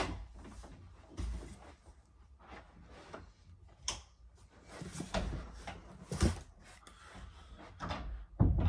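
Scattered knocks, clicks and thuds of objects being handled and set down, with a heavier thud a little after six seconds and another near the end.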